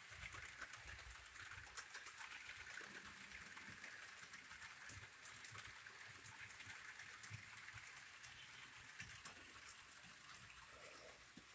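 Model trains running faintly on the layout track: a soft rolling whir with light scattered clicks from the wheels on the rails.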